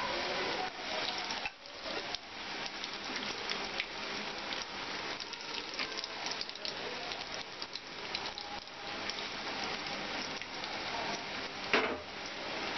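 Gram-flour-battered bread fingers sizzling and crackling steadily as they deep-fry in hot oil in a kadai, with a brief knock near the end.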